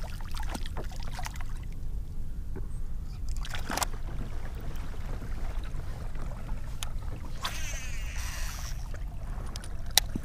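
Fishing kayak on calm marsh water: a steady low rumble of water and wind on the hull-mounted microphone, with a few scattered clicks and a short hiss a little past halfway; the sharpest click comes near the end.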